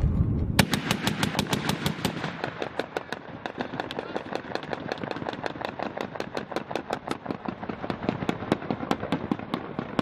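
Browning M2 .50-calibre heavy machine gun firing a long sustained burst of rapid, evenly spaced shots, loudest in the first couple of seconds.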